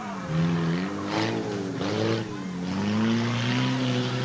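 Dirt-track race car engine revving hard and easing off over and over as it is driven around a muddy course, its pitch rising and falling, with a rougher, noisier stretch between about one and two seconds in.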